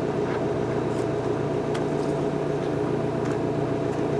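Excavator's diesel engine idling with a steady, even hum, with a few faint ticks.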